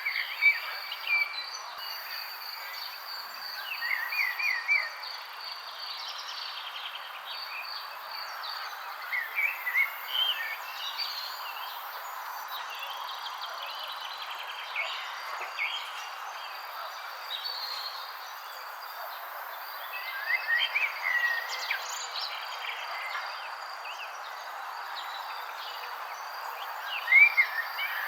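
Outdoor ambience of small birds chirping in short bursts every few seconds, the loudest near the end, over a steady high-pitched insect trill and constant background hiss.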